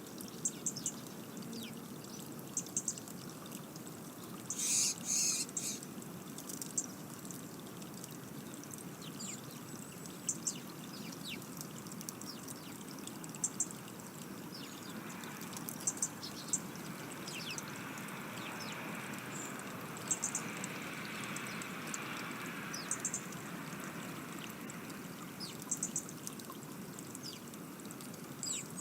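Outdoor garden ambience: a steady rush like trickling water under many short, high-pitched chirps from small birds. About five seconds in, a short, louder, harsh noisy burst stands out.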